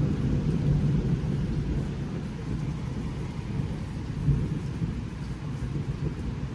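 Heavy rain falling, with a low, continuous rumble under it and a brief louder swell a little over four seconds in.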